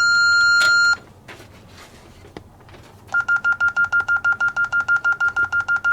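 Alarm system's electronic beeper: one long steady beep of about a second, then, after a short pause, rapid even beeping at the same pitch, about six beeps a second.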